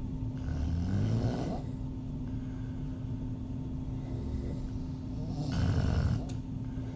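A woman snoring with her mouth open: two loud snores about five seconds apart, the first rising in pitch, with a softer breath between them.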